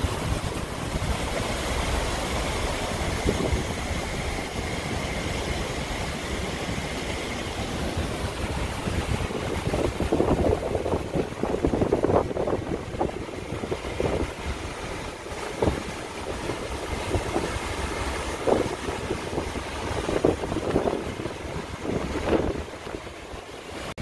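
Outdoor city background: a steady rumble of traffic with wind buffeting the microphone. It turns more uneven, with scattered louder patches, from about halfway through.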